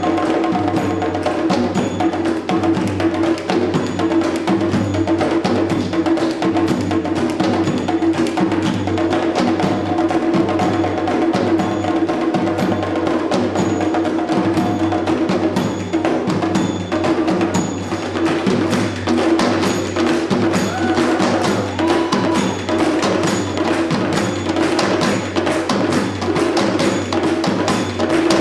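Sri Lankan drums playing a fast, continuous rhythm of dense strokes over a steady held tone.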